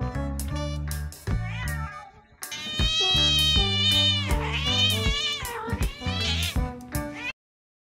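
A cat meowing in long, drawn-out calls that rise and fall in pitch, several in a row, over background music with a steady bass line. Everything cuts off abruptly about seven seconds in.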